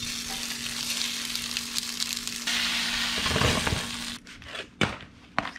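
Sausage links sizzling in a stainless steel skillet on an electric stove, a steady frying hiss with a low hum under it. About four seconds in the sizzle stops and a few sharp clacks follow as the pan is tipped over a paper plate.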